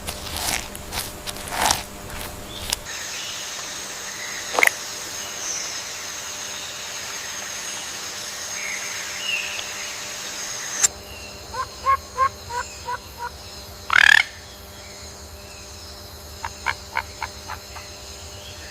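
Rainforest wildlife ambience: steady high-pitched background tones with short, repeated pitched animal calls and sharp clicks. The background changes abruptly twice.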